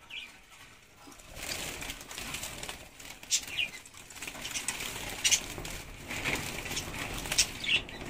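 Budgerigars flapping and fluttering in a wire cage as a hand reaches in to catch one, starting about a second in, with a few short shrill calls.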